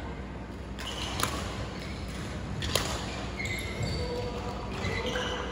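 Badminton rackets hitting a shuttlecock in a short rally: two sharp hits about a second and a half apart, echoing in a large indoor hall.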